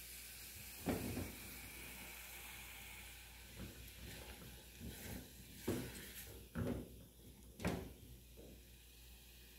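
Diced smoked sausage sizzling in fat and a little water in an aluminium pot, a steady low hiss. A silicone spoon stirs and bumps against the pot: once about a second in, then several times between about five and eight seconds in.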